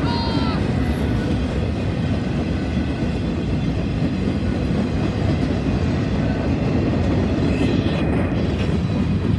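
CSX freight train's boxcars and covered hoppers rolling past at close range: a steady, continuous noise of steel wheels on the rails.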